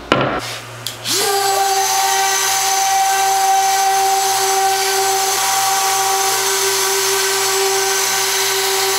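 A brief knock, then a Festool random orbital sander starts about a second in, spins up quickly and runs at a steady whine while sanding a hardwood end-grain cutting board at 120 grit.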